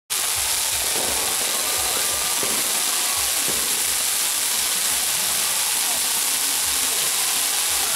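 Fireworks crackling and hissing in a continuous dense rattle, with low thumps about two to three times a second underneath.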